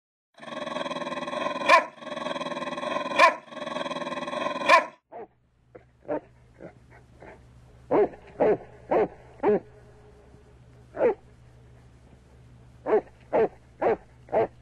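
A dog barking in short single barks, four about half a second apart, then one, then another four. Before the barking, during the title, a held tone sounds three times, each ending in a sharp crack, louder than the barks.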